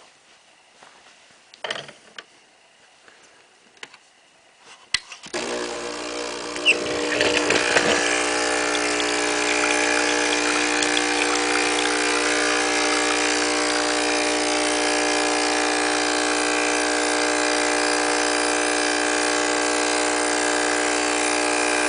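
Nespresso C190 espresso machine's pump starting after a click about five seconds in, growing louder for a few seconds, then running steadily as it pushes water through the brew head with no pod in. It stops suddenly at the very end when switched off.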